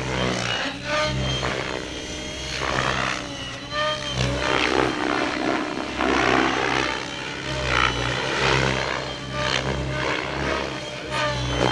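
Gaui X7 electric RC helicopter flying aerobatics: the rotor blades whoosh in repeated surges every second or two over a steady low rotor hum, with a whine that bends up and down.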